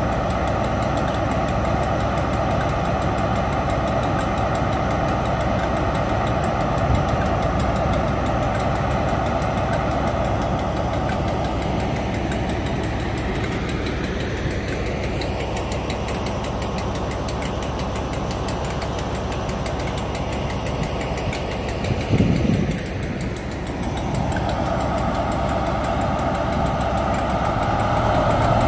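Diesel engine of a Class 43 HST power car idling steadily while the train stands at the platform, growing louder near the end.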